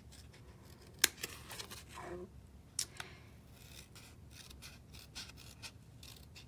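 Scissors snipping through folded cardstock in a handful of short, separate cuts, each a sharp click of the blades closing.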